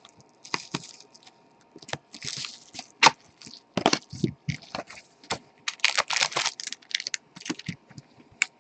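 Sealed boxes of trading cards and their packaging being handled: irregular clicks and taps with short bursts of crinkling.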